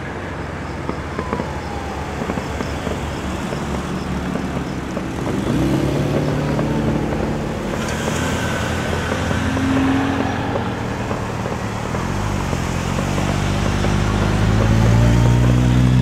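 Fireworks crackling and popping continuously, with a motor engine running steadily underneath that grows louder over the last few seconds.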